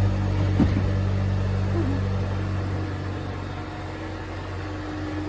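A car running with a steady low engine hum that slowly fades.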